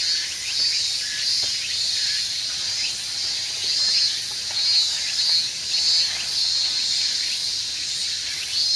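Insects chirping steadily, a high pulsing chorus about twice a second, with faint small clicks.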